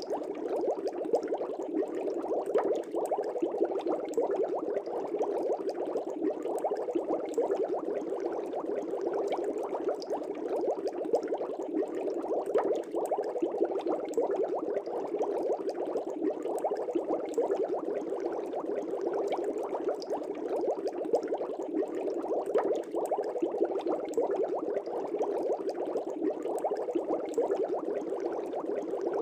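Aquarium air bubbles streaming up through the tank water: a steady, dense bubbling made of many small pops.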